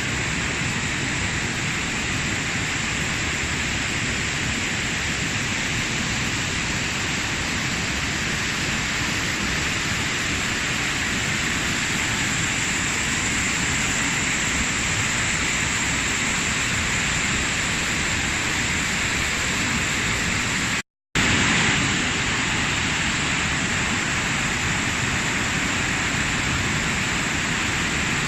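Waterfall: the steady rush of falling water, an even, unbroken hiss. It cuts out for a split second about two-thirds of the way through, then carries on.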